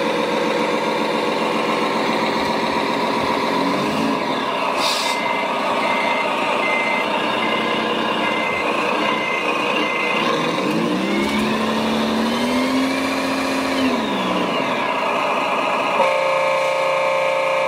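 Radio-controlled construction machines running, their motors whining and gliding up and down in pitch. A reversing beeper beeps about twice a second for several seconds mid-way, and a horn sounds a steady chord near the end.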